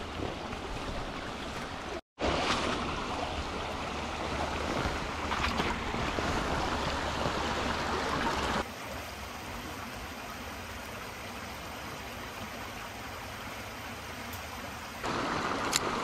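A small rocky mountain creek running over stones: a steady rush of flowing water. There is a brief gap about two seconds in, and the water sound drops in level about halfway through, then comes back up near the end.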